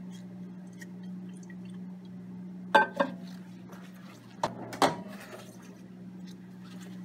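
Glass Erlenmeyer flask of hot agarose solution handled in a microwave oven: a few sharp clinks and knocks about three seconds in and again near five seconds, over a steady low hum.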